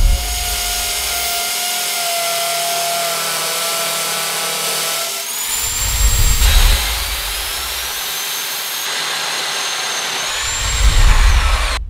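Corded ROK 710 W hammer action drill running at speed, boring into brick and then into timber, with a steady high motor whine. The sound changes abruptly about five and ten seconds in, at the joins between separate drilling takes.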